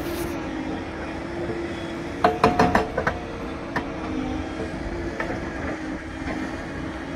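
Hydraulic excavator's diesel engine running steadily, with a quick burst of sharp metallic clanks about two seconds in and one more a little later.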